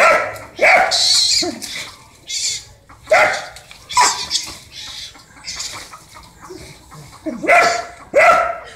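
Dog barking and snarling aggressively in short bursts, about seven loud barks grouped near the start and near the end, as it attacks a cornered hurón (mongoose) in the undergrowth.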